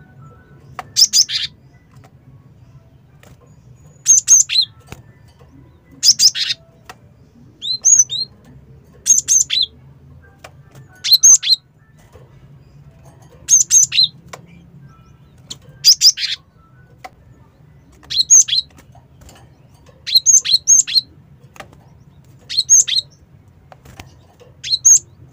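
Cinereous tit (gelatik batu) calling in short, loud bursts of a few sharp, high notes, repeated about every two seconds.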